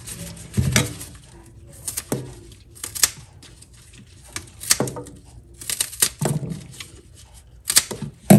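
Kitchen scissors snipping green onions, several separate crisp snips spaced a second or so apart, with rustling as the stalks are handled.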